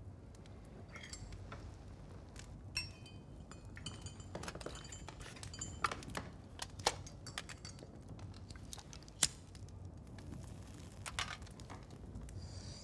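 A teaspoon clinking against a china teacup as tea is stirred, with scattered clinks of cups and crockery at several pitches and a few sharper clicks, the loudest about nine seconds in.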